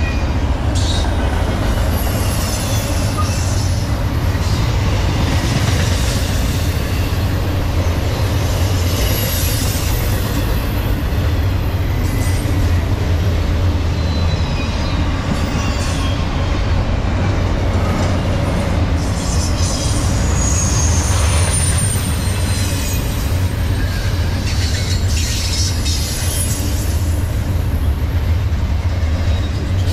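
Double-stack intermodal container train's well cars rolling past on steel wheels: a steady heavy rumble with scattered clicks and clunks, and faint high wheel squeals now and then, most around two-thirds of the way through.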